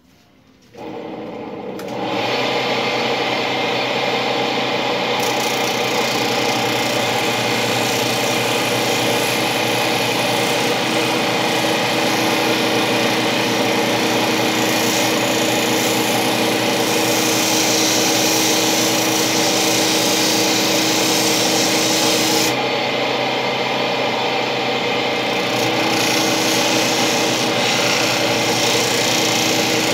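A small power tool runs steadily while abrading material in a rubbing, filing-like way. Its higher sound drops away for a few seconds about three-quarters of the way through, then returns.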